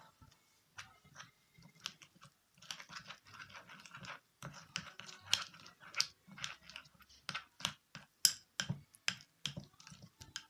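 A spoon stirring and scraping a thick paste of black soap and akar fassi powder in a bowl: irregular clicks and short scraping strokes.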